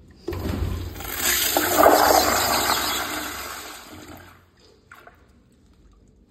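High-efficiency school toilet flushing. A sudden rush of water starts about a quarter-second in, is loudest around two seconds, and dies away by about four and a half seconds, with a faint click shortly after.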